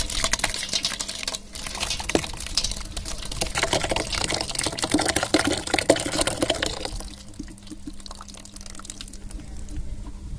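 Mashed watermelon pulp and juice pouring out of a hollowed watermelon and splattering into a large aluminium pot. It is a heavy wet splashing that thins to a lighter dribble about seven seconds in.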